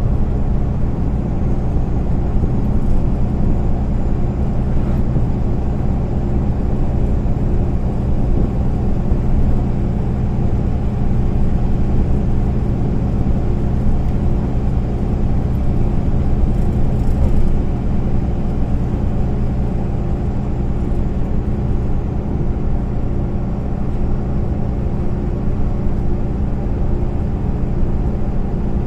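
MAN Lion's City A20 NL city bus under way, heard from inside the passenger cabin: the rear-mounted diesel engine drones steadily at an even speed over tyre and road noise.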